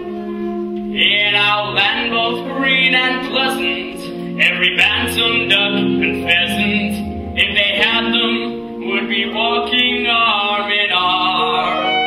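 Musical-theatre number sung on stage with instrumental accompaniment: voices singing phrase after phrase over a steady backing.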